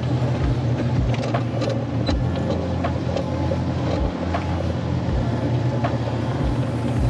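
Excavator's diesel engine running steadily under load as the machine tracks along, with irregular clanks and rattles from the tracks and the loaded bucket.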